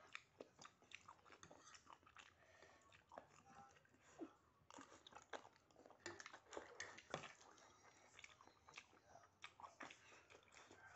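Quiet close-miked eating: a person chewing instant noodles and rice, with irregular wet mouth smacks and small clicks.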